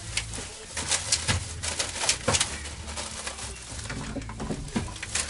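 Plastic shopping bags rustling and crinkling as groceries are unpacked, in a run of short crackles, over a low steady hum.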